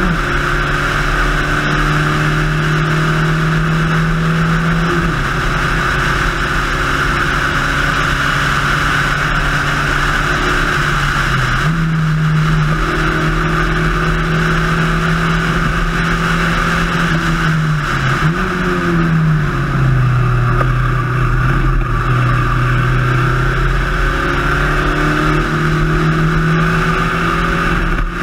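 Spec Racer Ford's four-cylinder race engine running hard at high, steady revs, its pitch dropping and climbing again a few times as the driver lifts and changes gear. Steady wind and road hiss runs under it.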